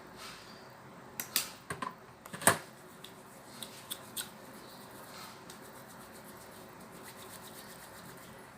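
Small items of nursing equipment being picked up and set down: a scatter of clicks and knocks over the first four seconds, the sharpest a little after two seconds in.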